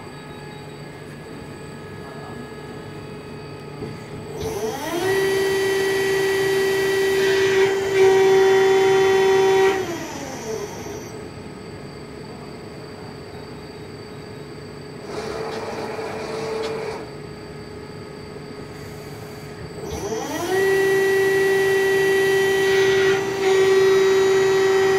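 Whine of a CNC press brake's servo-driven backgauge traversing, twice: the pitch rises as the axis speeds up, holds steady, then falls as it stops. A shorter, noisier movement comes between the two.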